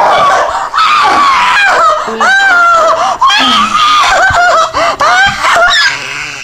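Several people screaming loudly in high-pitched, overlapping shrieks that cut off abruptly at the very end.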